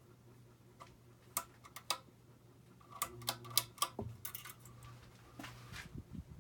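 Hunter Low Profile II ceiling fan with a steady low motor hum, over which come a series of sharp clicks and rattles. Single clicks fall about a second and a second and a half in, a quick cluster of clicks comes around three to four seconds, and a short rustling swish comes near the end.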